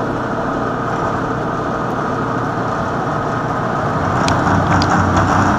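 Vertical milling machine spindle running steadily with a motor hum and whine, a hole cutter feeding down onto a steel pipe. About four seconds in, sharp ticks and scraping join in as the cutter starts biting into the pipe wall.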